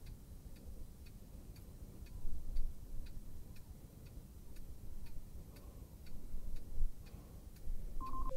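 Amazon Echo Wall Clock's mechanism ticking steadily, about two faint ticks a second, over a low rumble that swells about two seconds in and again near seven seconds. Near the end the Echo's timer alarm tone starts as the 20-second timer runs out.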